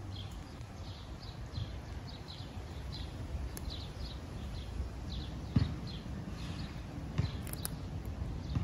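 Small birds chirping over and over, a few short high chirps each second, while a cat crunches dry kibble. There is a low outdoor rumble and a single sharp knock about five and a half seconds in.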